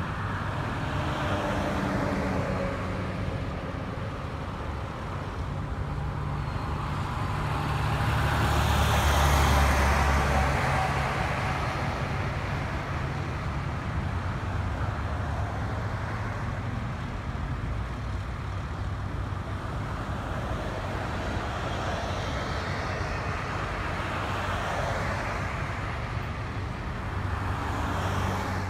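Steady rumble of running vehicle engines and road traffic, swelling louder for a few seconds about eight to eleven seconds in.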